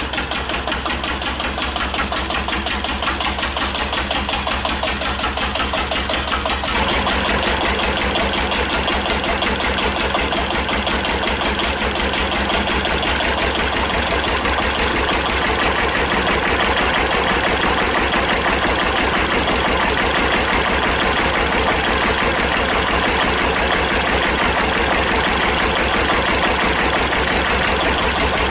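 1941 Witte CD 12-horsepower single-cylinder diesel engine of a generator plant, running steadily with an even beat of firing strokes. From about seven seconds in it is heard closer and louder.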